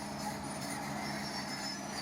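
Heavy earthmoving machine's diesel engine running steadily, with short high metallic squeaks over it.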